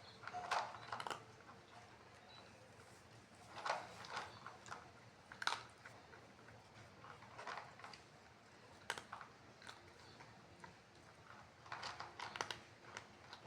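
A cat chewing food, with short clusters of clicky bites every second or two.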